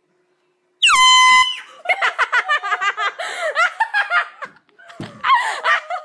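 A handheld air horn blasts once, loud and about half a second long, about a second in. It is followed by a few seconds of high-pitched yelling and laughter.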